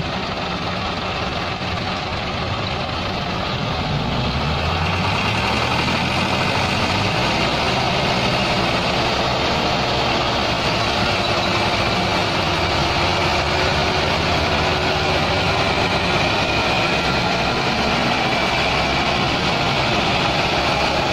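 Several tractor diesel engines (Massey Ferguson and Belarus) running together under heavy load as they tow a combine harvester stuck in mud on a chain. They rev up and grow louder about four seconds in and hold a steady, hard pull after that.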